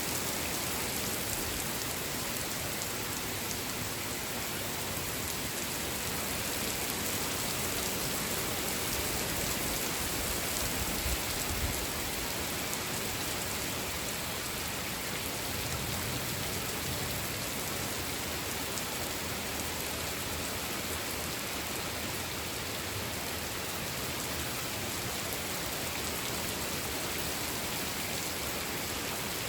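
Steady rain falling, an even hiss with no breaks, swelling slightly about eleven seconds in.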